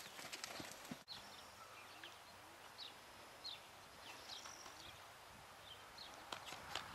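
Hooves of a grey Lusitano horse striking arena sand at a canter for about the first second. The sound then drops suddenly to a quiet stretch with soft hoof steps and a few faint, short high chirps of small birds.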